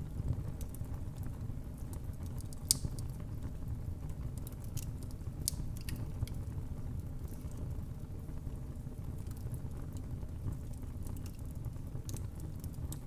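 Fire burning in a fireplace: a steady low rumble of flames with scattered crackles and pops, one sharp loud pop near three seconds in.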